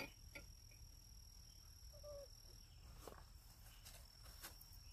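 Near silence: quiet pond-side outdoor ambience with a faint steady high-pitched tone and a few soft clicks.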